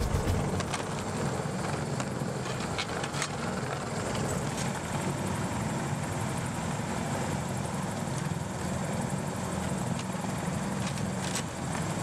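Steady drone of a helicopter running, with a few faint clinks from steel lifting chains being handled.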